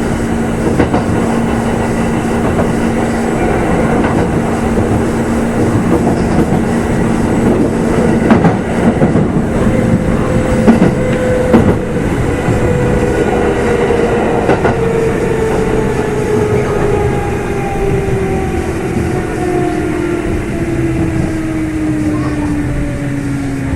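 Kintetsu 2800 series electric train running, heard inside a motor car: a steady motor tone and wheel clatter. From about ten seconds in, the motor whine falls steadily in pitch as the train slows.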